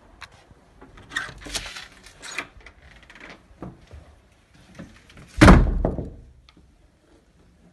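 Scuffing and rustling noises, then one loud thunk of a panelled interior door about five and a half seconds in.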